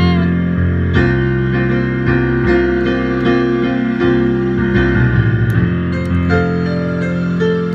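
Piano playing a slow passage of sustained chords and melody notes, changing about once a second.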